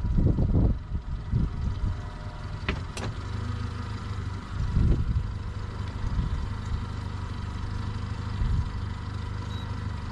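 Boat motor idling with a steady low rumble. A few sharp clicks come about three seconds in and a duller knock a couple of seconds later, while the caught striped bass is handled for weighing.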